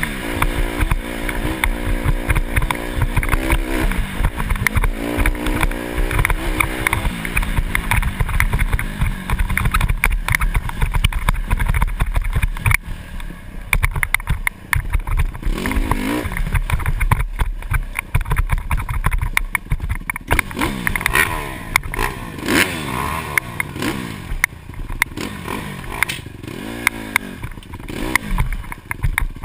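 Dirt bike engine revving on a rough trail, with knocks and clatter from the bumps. The pitch holds high for the first several seconds, then in the quieter second half it repeatedly rises and drops as the throttle is opened and closed.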